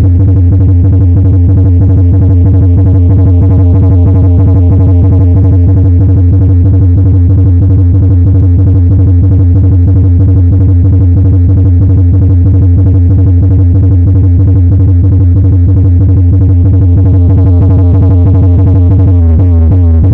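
Electronic dance music with a very loud, continuous deep bass and a fast, even beat, played through 18-inch PA subwoofer speakers in a sound test.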